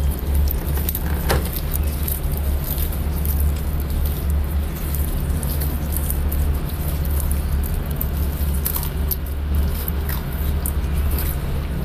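Leopard tortoises biting and tearing sweet potato leaves: scattered small crisp clicks and leafy rustles. Under them runs a steady low hum, which is the loudest sound.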